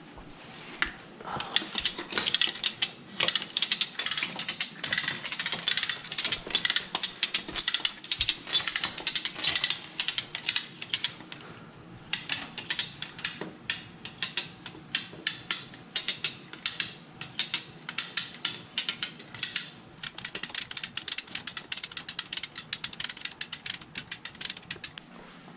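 Hand come-along cable puller being cranked under load, its ratchet and pawl clicking in a long run, denser at first and then a few clicks a second. It is hauling a Humvee frame across the floor.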